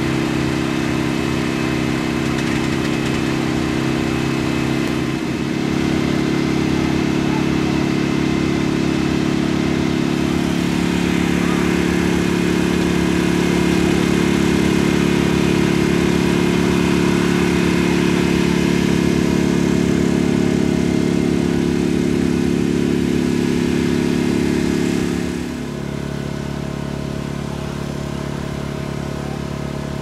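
An engine running at a steady speed. Its revs step up about five seconds in, hold, then drop back abruptly near the end.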